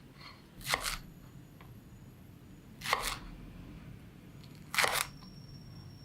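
Three short, crisp crunches about two seconds apart, made while crisp raw ingredients are prepared by hand.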